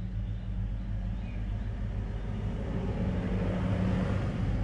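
Steady low engine rumble of a motor vehicle, swelling a little about three seconds in.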